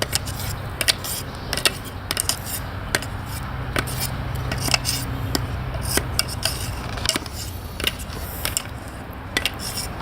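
A utensil clicking and scraping against a bowl and a metal baking pan as cake batter is poured and scraped out into the pan, with many irregular sharp taps over a low steady hum.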